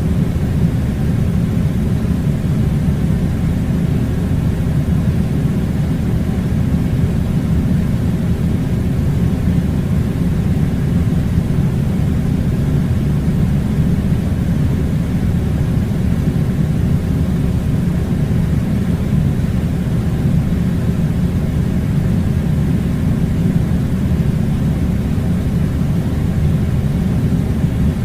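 Steady low rumble of air conditioning airflow, unchanging throughout, with no pitched tones or distinct events.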